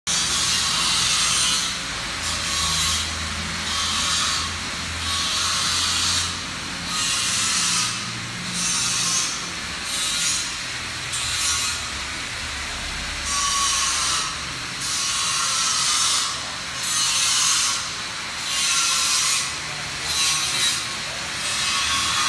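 Rhythmic rasping strokes of hand work on wood, about one every second and a half, each a short scratchy hiss.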